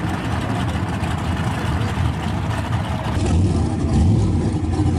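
Drag-racing car engine running loud and rough. About three seconds in there is an abrupt change to a louder, duller engine sound.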